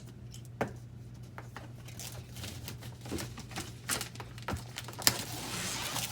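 Hands handling a cardboard shipping box: scattered taps and knocks, the sharpest about five seconds in, then a rustling scrape near the end. A steady low hum runs underneath.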